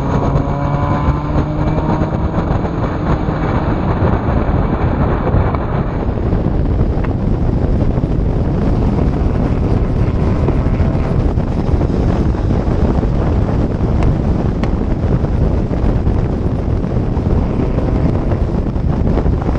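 Turbocharged Volkswagen Jetta 1.8T four-cylinder engine with a GT28 turbo, running hard while the car drives at speed. The engine note rises over the first few seconds, then is mostly buried in heavy wind and road noise.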